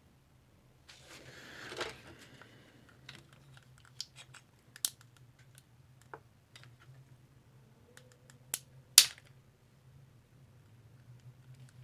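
Small plastic clicks and snaps from hands working a plastic headphone headband during a repair. A scratchy rustle comes about a second in, followed by scattered clicks, with one loud snap near the end.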